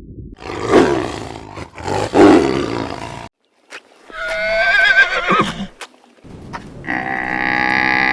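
A run of different animal calls: two rough, roar-like calls, then a shorter wavering high-pitched call, then one long steady call that starts in the second half.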